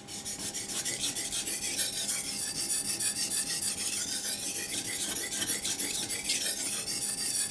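Steel knife blade of an ESEE-6 being stroked fast back and forth across a wet sharpening water stone: a steady run of quick, rasping scrapes.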